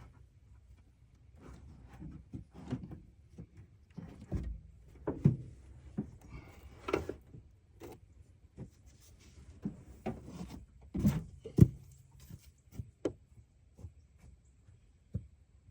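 Irregular knocks, clicks and rubbing of hand work with tools and parts, the loudest knocks about five seconds in and twice around eleven seconds in, over a low steady hum.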